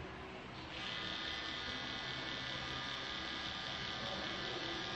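Electric tattoo machine running steadily as the needle works into the skin, a high even buzz that dips briefly at the start and picks back up under a second in.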